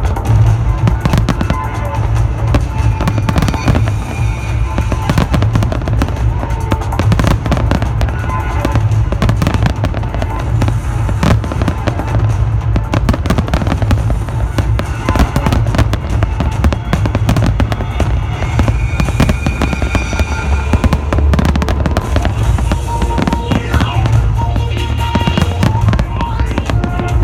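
Fireworks bursting in quick, dense succession, a continuous run of bangs and low booms, with music playing alongside.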